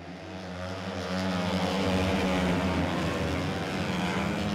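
A pack of flat-track racing motorcycles running at full throttle on a dirt oval, their engines getting louder about a second in as the bikes come past close by.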